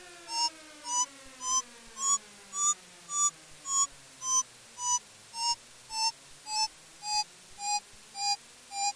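Electronic music: a short pitched blip with a hissy top repeats just under twice a second over a synth tone that glides slowly down in pitch, turning to rise again near the end.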